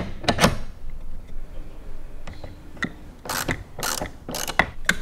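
Ratchet wrench clicking in several short bursts of rapid clicks, tightening the bolts of a kayak's rudder mount, with a few lighter metal clicks and knocks of the hardware before them.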